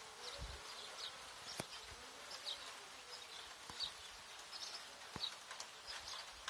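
Common nightingale singing faintly: short high notes at irregular intervals, with a faint low hum that comes and goes.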